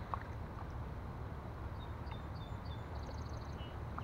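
Steady low wind-and-water noise on the microphone, with a light click just after the start. In the second half a small songbird gives a run of short high chirps and a quick trill.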